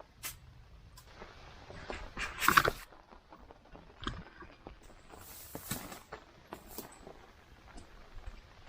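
Scattered rustling and small clicks, with a louder rustle about two and a half seconds in and a softer, hissier one a little past halfway.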